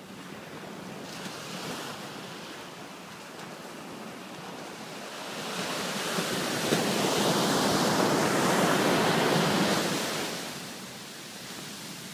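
Ocean surf: a wave breaks and its wash rushes up the sand, swelling to a loud rush about halfway through and dying down near the end.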